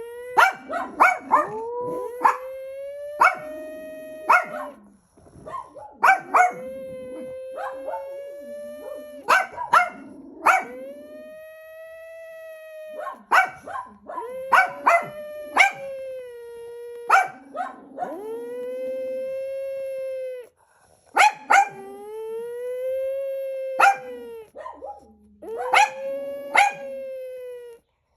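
A Boston terrier howling like a warning siren: a series of long wails a few seconds each, swelling and sagging slightly in pitch. Short sharp yips punctuate the gaps between them.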